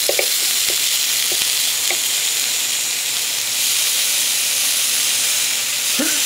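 Chicken breasts sizzling on a George Foreman electric contact grill: a steady frying hiss, with a few light clicks of a knife cutting into the meat in the first couple of seconds.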